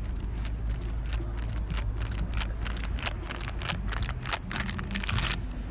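Wind buffeting the microphone as a steady low rumble, with a run of sharp clicks and rattles that grows denser through the middle and stops shortly before the end.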